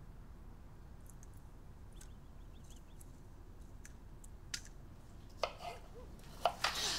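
Quiet kitchen activity: scattered light clicks of cutlery and dishes, growing into louder clattering and rustling with a few sharp knocks in the last couple of seconds.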